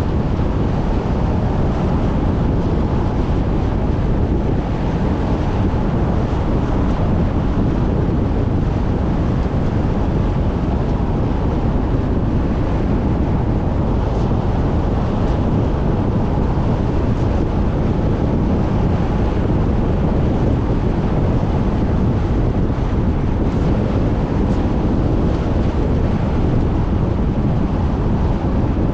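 Steady road and wind noise from a moving car: an unbroken low rumble with wind on the microphone.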